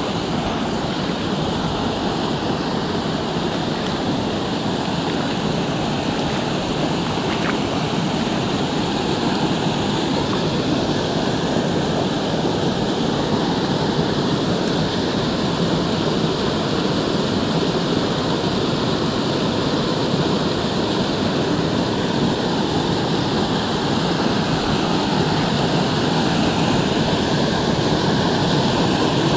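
Small mountain-creek waterfalls pouring over mossy rocks into a pool, making a steady rush of water that grows slightly louder toward the end.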